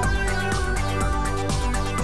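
Electronic music with a steady beat.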